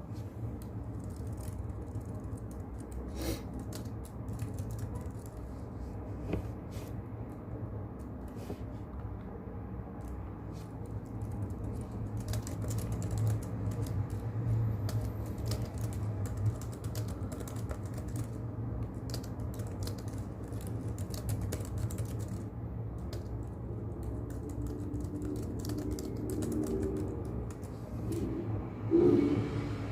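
Irregular keyboard typing clicks over a steady low brown-noise hiss, with a louder bump near the end.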